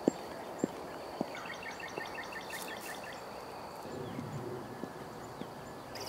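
Three footsteps of boots on a paved path, then outdoor ambience with a bird giving a quick run of repeated chirps about two and a half seconds in.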